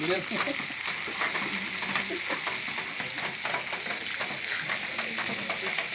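Shrimp frying in butter and garlic in a pan, sizzling steadily with many small crackles as they cook toward turning reddish-orange.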